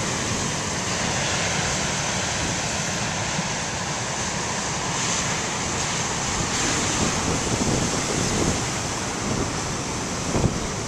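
Big ocean surf breaking and washing in a steady roar of noise, with wind blowing across the microphone. There are a few short gusty thumps near the end.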